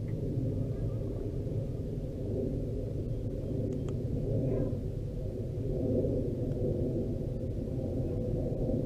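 Boat motor running steadily with a low, even drone.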